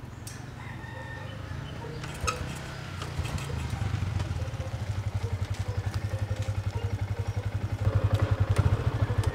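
Small underbone motorcycle engine running with a steady low exhaust beat that grows louder and plainer from about three seconds in.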